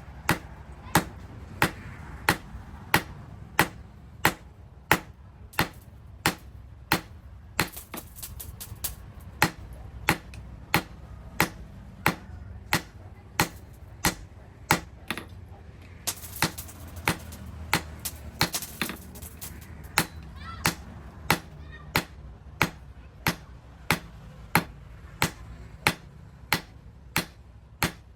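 Blacksmith's hammer striking hot steel on an anvil while forging an axe, a steady rhythm of about one and a half blows a second, each with a short metallic ring, over a low steady hum.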